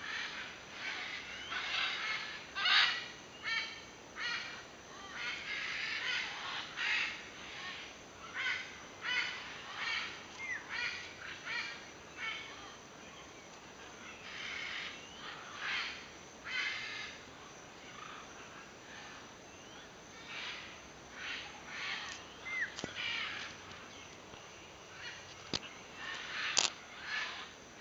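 A flock of scarlet and great green macaws calling: repeated harsh squawks, often overlapping, with short gaps and a few brief rising whistles.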